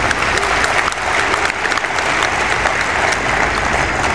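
A large crowd applauding, many hands clapping together at a steady level.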